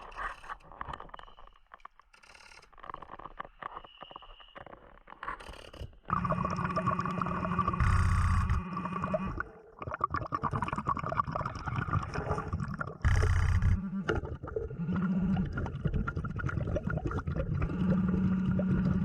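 Underwater sound of a diver on a Blu3 Nemo hookah regulator: a steady hum with heavy rumbling swells of breath and exhaled bubbles about every five seconds.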